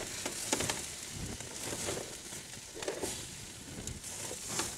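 Chicken wings sizzling over a fireplace fire, with fat crackling and scattered sharp pops.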